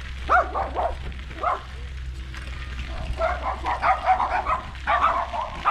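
Dogs barking: two or three sharp barks in the first second and a half, then rapid, repeated barking from about three seconds in. A low steady hum runs underneath.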